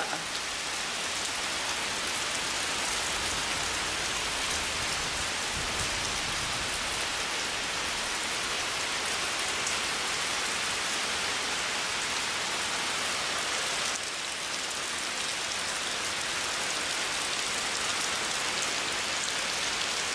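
Steady rain falling on a concrete patio and lawn, an even hiss with no break.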